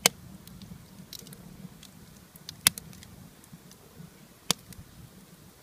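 Wood campfire crackling, with three sharp pops (one right at the start, one about two and a half seconds in, one about four and a half seconds in) and fainter ticks between.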